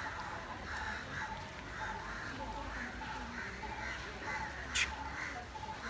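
Short animal calls repeating steadily, about twice a second, with one sharp click near the end.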